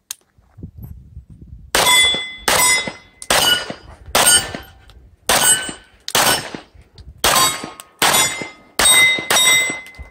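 Smith & Wesson Model 952 9mm pistol firing a string of about ten shots, roughly one every 0.8 seconds, starting about two seconds in, with steel plate targets ringing as they are hit.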